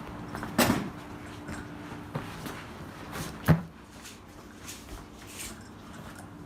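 Carpet installers working: a few scattered knocks and thuds from handling padding and tools, the loudest about three and a half seconds in, over a faint steady hum.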